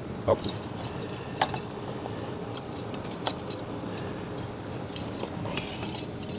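Scattered metal clicks and clinks from handling the pump's band clamp and motor parts, a few single clicks followed by a quick cluster of clinks near the end.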